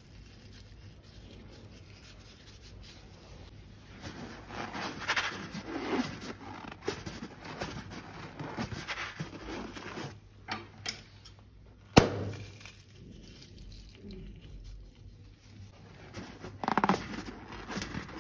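Slime being squished and mixed by hand, with irregular wet crackling and squelching after a few quiet seconds. One sharp snap comes about twelve seconds in.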